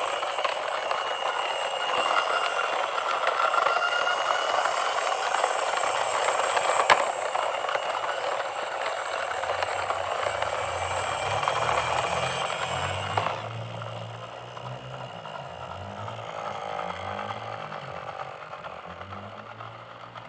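Toy vehicle's small motor and plastic gears rattling steadily, with one sharp click about seven seconds in. The rattle drops off about thirteen seconds in, leaving a fainter, lower wavering hum.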